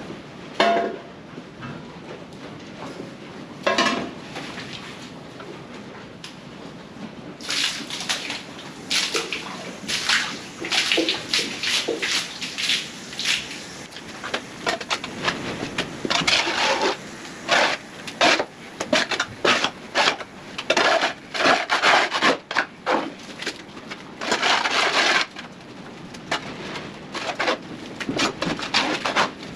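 A hand scraper being pushed over a slatted concrete floor to clear out a cattle pen, in quick repeated scraping strokes. Two single strokes come in the first few seconds, and steady scraping sets in about seven seconds in.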